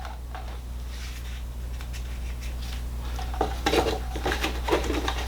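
Small clicks, rattles and rubbing as a test controller and its wire leads are handled and folded up, busier in the second half, over a steady low hum.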